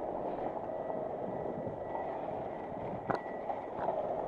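Car moving slowly, a steady low rumble of engine and tyres heard from inside the cabin, with a single sharp click about three seconds in.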